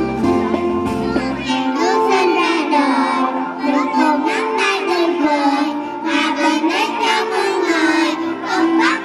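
Young children singing a song over an instrumental backing track. The backing's bass drops out about one and a half seconds in while the singing carries on.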